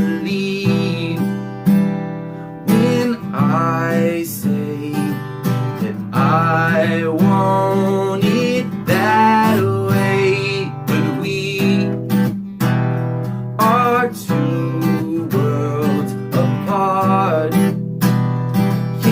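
Acoustic guitar strummed steadily while a solo voice sings over it in a pop song.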